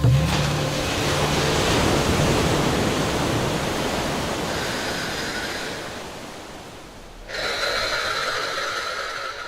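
Sea waves washing up on a beach: a full, even surf hiss that swells at the start and slowly fades over several seconds. About seven seconds in it gives way suddenly to a steadier hiss with a faint high-pitched tone.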